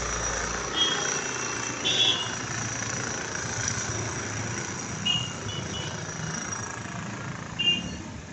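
Street traffic: vehicle engines running under a steady background noise, with short high-pitched beeps four times, about one, two, five and seven and a half seconds in.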